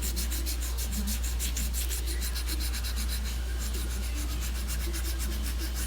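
Hand sanding with 200-grit sandpaper on the metal helix of a Polaris Ranger 500 driven clutch: quick, even back-and-forth strokes, about five a second, smoothing out file marks left from filing the grooves away. A steady low hum lies underneath.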